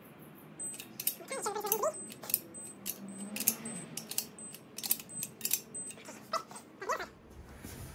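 Ratchet wrench clicking as it tightens cylinder head nuts on an air-cooled VW flat-four, a quick run of metal clicks that stops about a second before the end. Two brief wavering whines come through, one about a second in and one near the end.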